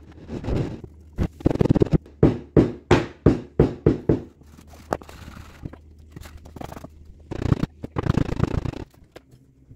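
Casting sand being worked by hand at the molding table: a run of short scraping, thudding strokes, about three a second, through the first four seconds, then another rough burst near the end.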